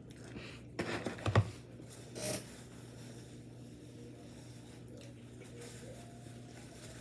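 Close-up eating sounds of a person eating a burger: a few short bite and handling noises about a second in and again near two seconds, then a quieter stretch over a steady low hum.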